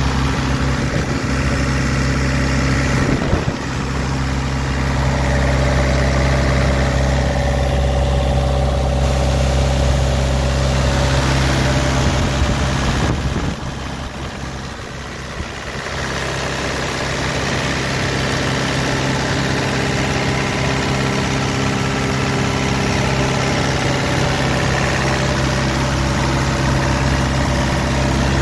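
Diesel engine of a 2008 Neuson 50Z3 RD mini excavator idling steadily, growing a little quieter for a few seconds about halfway through.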